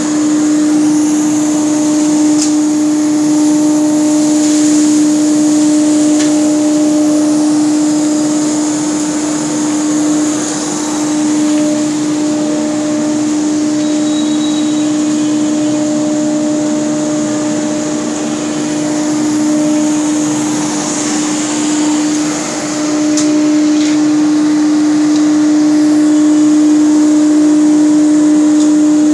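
A twin-bag workshop dust collector running, its hose sucking sawdust off a CNC-carved wooden panel: a steady hum with a constant hiss of rushing air.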